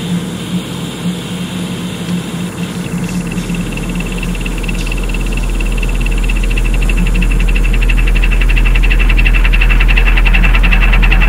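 Drum and bass music in a noisy, machine-like passage: a hum and hiss with a high steady whine. A deep sub-bass drone comes in about three seconds in, and the whole builds steadily louder.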